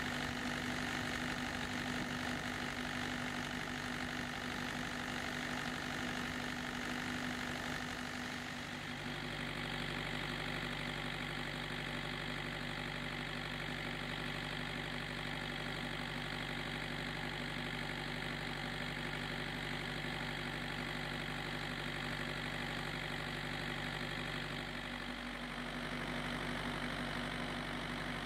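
Kubota V2203 four-cylinder diesel engine running steadily at low idle.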